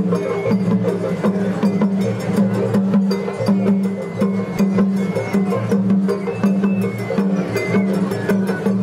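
Japanese festival hayashi music from the float ensemble: drums and hand percussion struck in a quick, even beat, with held melodic tones over them.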